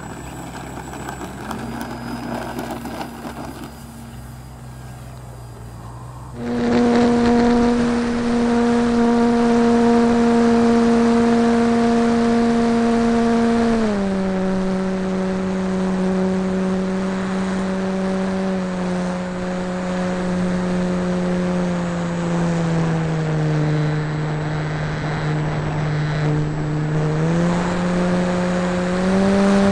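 ParkZone T-28 electric RC plane's motor and propeller, heard from a camera taped to its canopy: a loud, steady buzzing whine that shifts with the throttle, stepping down in pitch about halfway through, lower again for a few seconds, then back up near the end. It starts quieter and fainter for the first few seconds before jumping up in level.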